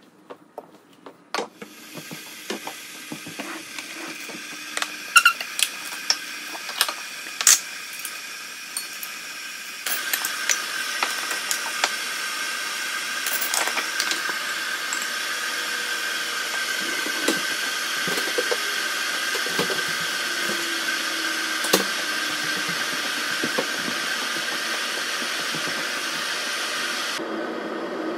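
A steady hissing from a kitchen appliance, stepping up louder about ten seconds in and dropping away sharply near the end, with scattered sharp clicks and knocks of cups and utensils being handled.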